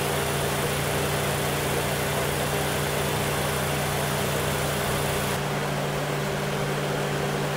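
Toyota Sienna's engine idling with a steady, even hum. A hiss over it drops away about five seconds in.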